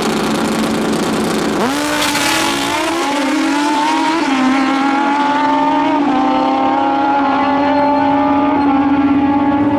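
Two drag-racing motorcycles launching hard from the start line. The engines hold at steady revs, then about a second and a half in the pitch jumps as the bikes leave, and it climbs in steps through several gear shifts, each one a brief dip in pitch.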